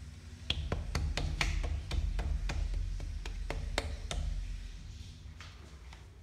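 A quick, uneven run of sharp clicks and taps, about a dozen in three and a half seconds, as a hand handles a chrome urinal flush valve, over a steady low hum.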